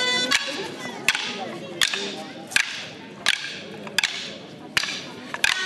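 Wooden dance sticks clacking in an even rhythm, about eight sharp strikes roughly 0.7 seconds apart, as the stick dancers keep time. The accompanying music drops away to a faint background under the strikes.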